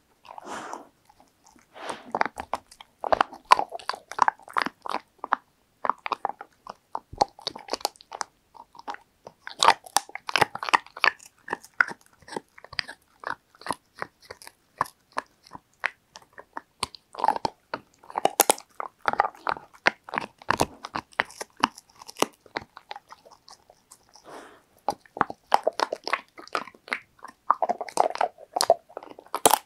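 Labrador retriever chewing dried shark-cartilage treats close to a microphone: irregular crisp crunches and bites in clusters, with brief pauses between them.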